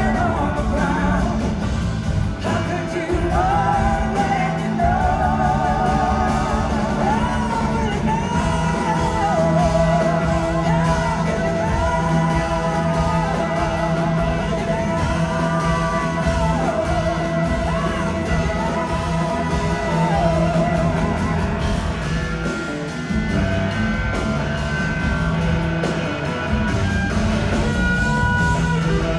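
A live rock band plays with singing and electric guitar. Long, wavering lead notes sit over a sustained low bass note.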